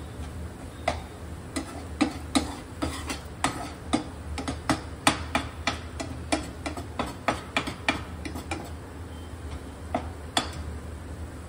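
Steel slotted spoon knocking and scraping against a frying pan as thick masala paste is stirred and roasted: a run of sharp clicks, about two or three a second, that stops about eight and a half seconds in, then two more knocks near the end.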